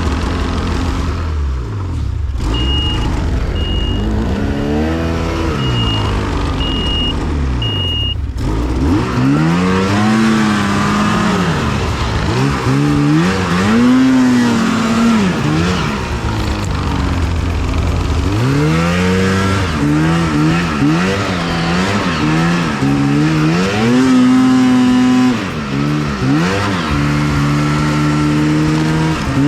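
Two-stroke snowmobile engine being ridden hard, its revs climbing and falling again and again as the throttle is worked.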